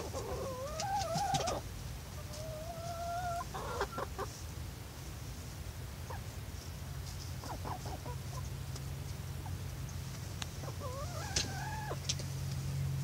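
Barred Rock and Australorp hens clucking and calling, with several drawn-out calls: one rising call at the start, one held on a steady pitch for about a second, short calls in between, and another rising call near the end. A low steady hum runs underneath.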